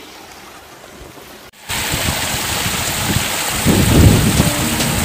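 Quiet running water, then, from a cut about one and a half seconds in, a loud, even rushing noise with low rumbling buffets about two-thirds of the way through.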